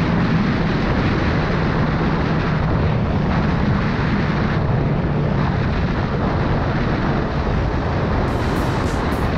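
Motorcycle cruising at highway speed: heavy wind rush over the microphone with the engine's steady hum underneath, its pitch easing slightly lower over the first few seconds.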